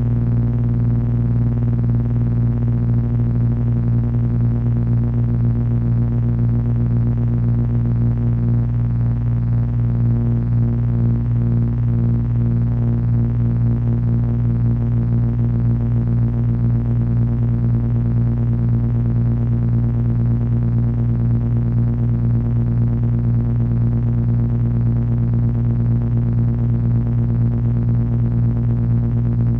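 Heavy electronic drone from three Frequency Analyzer v1 units driven by an HP 200C audio oscillator: low tones held steadily in layers, with a fine pulsing texture that shifts slightly about nine seconds in.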